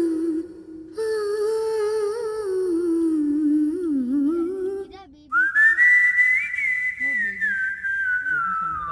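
A person humming a slow melody, which breaks off about five seconds in. The tune then carries on whistled, higher and with a gentle wavering.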